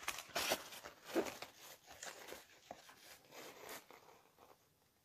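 Stiff diamond painting canvas rustling and crinkling as it is handled and flexed, in irregular bursts that die away near the end.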